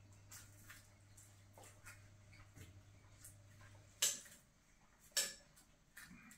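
Light clicks and taps of eating utensils against bowls and dishes, with two sharp clinks about four and five seconds in, over a faint low hum that stops about four seconds in.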